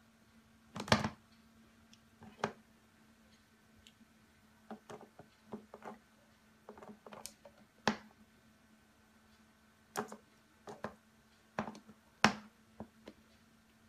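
A cat's paw tapping and batting at the hard plastic nozzle of a humidifier: a string of irregular light taps and clicks, the loudest about a second in and again near the end, over a faint steady hum.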